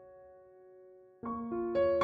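Background piano music: a held chord dies away, then new notes come in about a second in.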